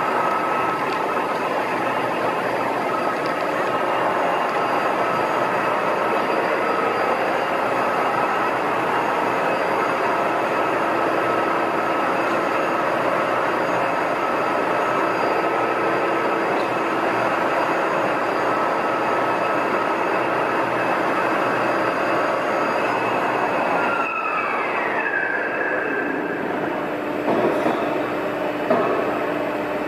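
VDF Boehringer DUE 800 heavy engine lathe running, a steady mechanical drone with a high gear whine. About 24 seconds in the whine falls in pitch as the machine runs down. A couple of knocks follow near the end.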